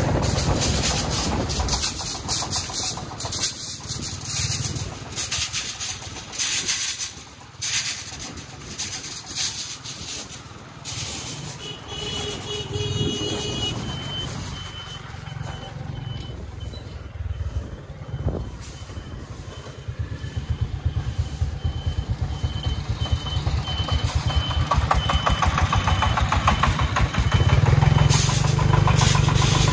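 Single-cylinder diesel engines of three-wheeled công nông farm trucks chugging along while hauling building materials, heard from a motorbike riding close behind and alongside. The engine beat grows louder near the end.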